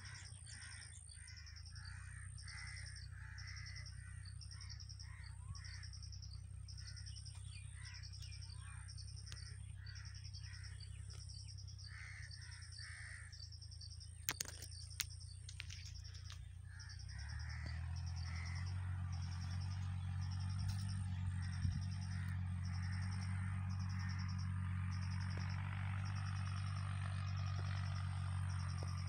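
Outdoor ambience: a crow cawing over and over through the first half, with a high chirp pulsing about once a second throughout. Under them runs a low steady hum that grows louder about seventeen seconds in.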